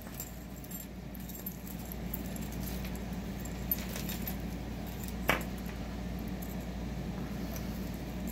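Metal costume jewelry chains and pieces clinking and jingling softly as fingers untangle a pile, with a sharper clink about five seconds in.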